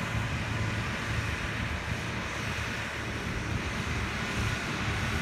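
Distant tractor engine running steadily while pulling a carry-scraper across the field, with wind rumbling on the microphone.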